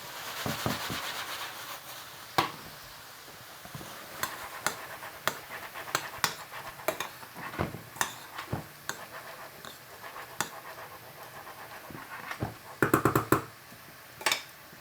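A metal cooking utensil knocking and scraping against cookware in separate sharp clicks, with a quick run of taps near the end, over a soft frying sizzle in the first couple of seconds.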